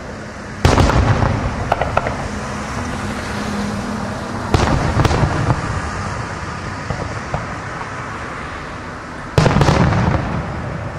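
Aerial firework shells bursting: three loud booms about four seconds apart, each trailing off in a low rumble, with a few sharp cracks after the first.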